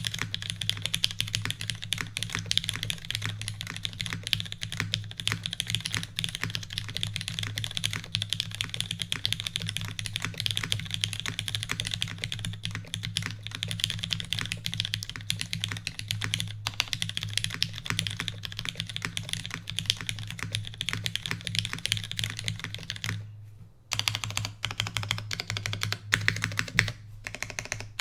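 Typing on a mechanical keyboard with lubed and filmed Cherry MX Black linear switches in an aluminium-plate, o-ring-mounted Ahgase Prototype 2, fitted with GMK Dolch keycaps. Fast, continuous keystrokes, with a brief pause about 23 seconds in.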